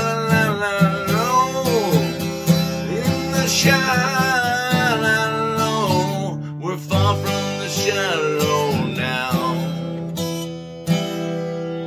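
Man singing long wordless held notes over a strummed acoustic guitar. His voice stops about nine seconds in and the guitar rings out, with one last strum near the end as the song closes.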